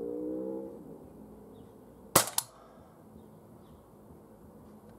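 A CO2 blowback air pistol, an Umarex Glock 17 Dual Ammo, fires one pellet about two seconds in: a sharp crack followed a quarter second later by a quieter snap. An engine hum fades out in the first second.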